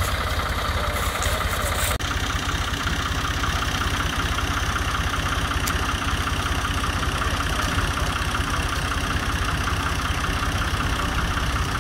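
Diesel tractor engine idling steadily.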